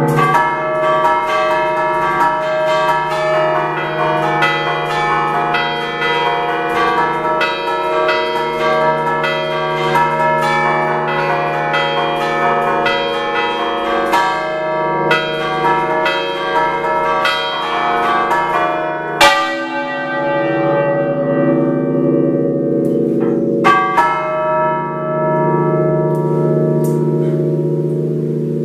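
A concert of six church bells tuned in D, rung by hand in the Ligurian 'a ducale' style. Rapid rhythmic strokes on several bells overlap and ring on together, then thin out about two-thirds of the way through to a few single loud strokes while the bells keep humming.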